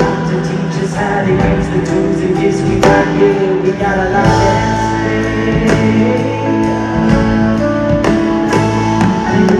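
Live band playing a song with a lead singer and backing vocals, amplified through the PA and heard from the audience seats of a large hall.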